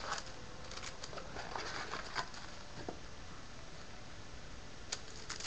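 Faint scattered rustles and light clicks of a cardboard trading-card box being handled and opened by hand.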